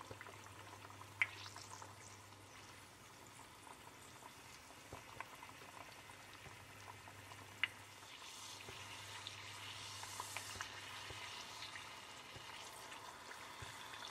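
Bánh tiêu dough deep-frying in hot oil in a stainless steel pot: a faint, steady sizzle with two sharp ticks. The sizzle grows louder about eight seconds in, as the oil bubbles hard around the dough.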